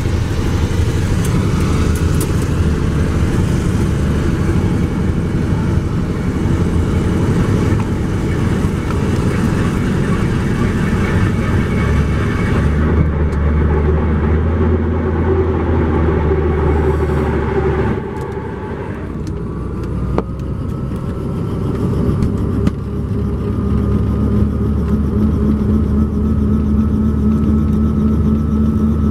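Helicopter engine and rotor running on the ground, a loud steady mechanical sound. About 18 s in it dips, then builds back with a steady tone that rises slightly.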